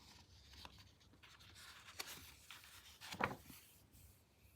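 Faint rustling of paper as a picture book is handled and its page turned, with one louder rustle about three seconds in.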